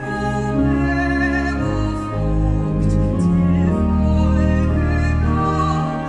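A woman singing a Danish hymn with a trained, operatic vibrato, accompanied by a church organ holding sustained chords underneath. Near the end the music dips briefly at a break between phrases.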